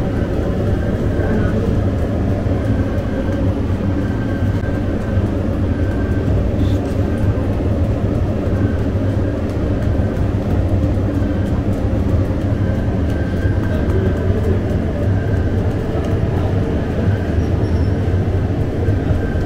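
Steady low rumble of a bakery's gas-fired bread oven running without a break.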